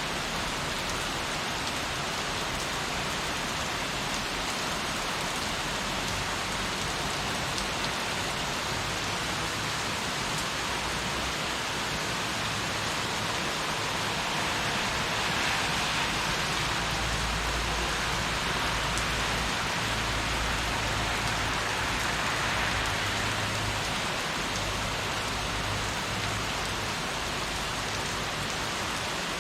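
Heavy rain falling steadily, swelling a little louder about halfway through, with a low rumble underneath during the louder stretch.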